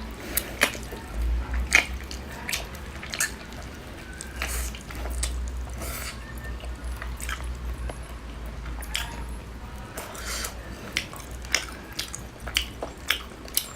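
Close-miked eating: wet chewing, smacking and biting sounds with many irregular clicks and crunches, over a low steady rumble.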